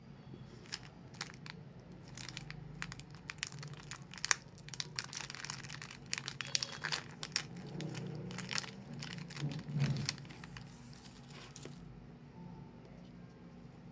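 Plastic candy packet crinkling and tearing open in the hands, a long run of small crackles that dies away near the end.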